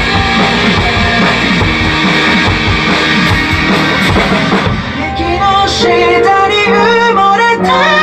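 Drum kit played along to a pop-rock backing track, busy hits for the first half; about five seconds in the drums drop out, leaving a sung melody over held bass and keyboard notes.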